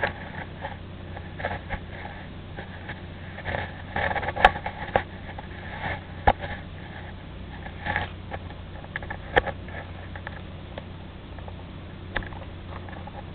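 A cat sniffing right at the microphone in short, irregular bursts, with a few sharp knocks as the camera is bumped.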